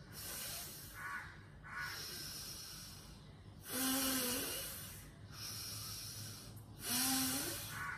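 A woman breathing out hard and audibly, paced with a squeeze-and-release exercise of the toes: three long exhales, the strongest beginning about four and about seven seconds in. Each out-breath goes with a squeeze of the toes.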